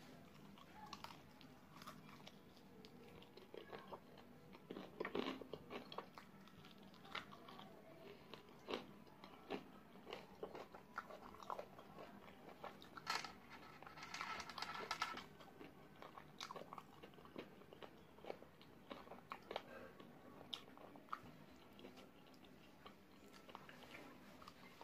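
Close-miked eating of sauce-coated spicy fried chicken wings: irregular bites, crunches and chewing, with a denser, louder run of crunching a little past halfway.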